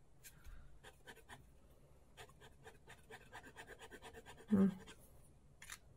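Faint, irregular clicks and light scratching from a Derwent Line Painter water-based paint marker being handled and worked on paper, with a short hummed voice sound about four and a half seconds in.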